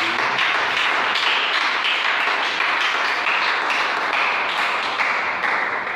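Congregation applauding, dense steady clapping that begins abruptly and dies away near the end.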